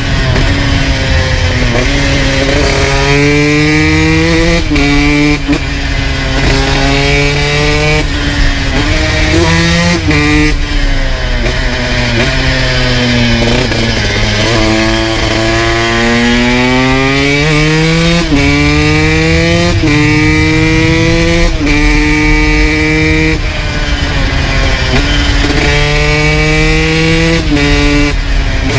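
2002 Honda CR125 two-stroke single with a full FMF exhaust, ridden hard through the gears: the engine pitch climbs, drops sharply at each upshift and climbs again. Partway through it falls back off the throttle, then pulls up through the revs again.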